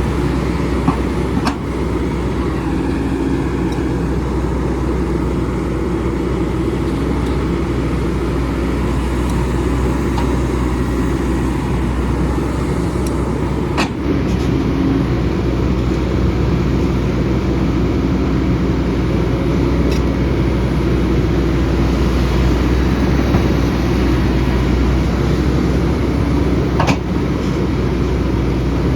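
Excavator's diesel engine running steadily under load, with a few short sharp knocks scattered through.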